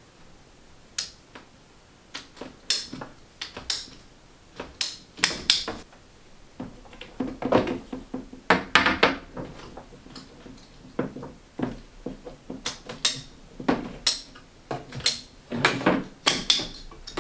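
Sharp clicks and snaps of a ratcheting PVC pipe cutter closing on half-inch PVC pipe, followed from about halfway by a denser run of knocks and clatter as lengths of PVC pipe are handled and knocked against a wooden tabletop.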